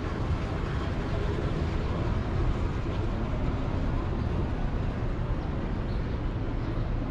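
Steady city street traffic noise: a low, even rumble with no distinct events standing out.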